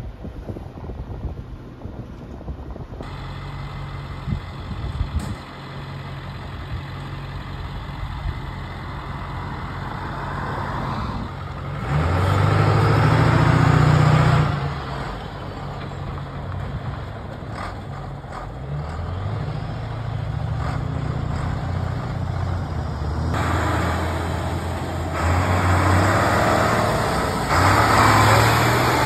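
Engine of a forest-fire tanker truck running as the truck pulls out and drives past, swelling to its loudest about twelve seconds in and again near the end.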